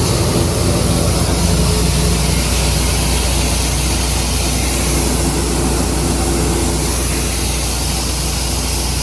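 Heavy farm machine's engine running steadily under a constant hiss, with a low drone that doesn't change much; a higher hum fades out about two seconds in.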